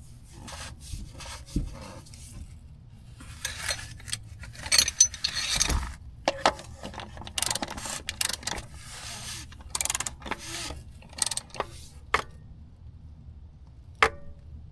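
Socket ratchet clicking in several short bursts, with small metal clicks and scrapes of the tool, as the oil pan drain plug is snugged down by hand.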